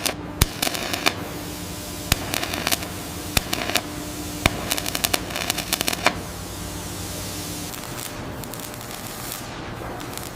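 Shipyard work noise: a steady hiss with irregular clusters of sharp clicks and cracks during the first six seconds, then only the hiss.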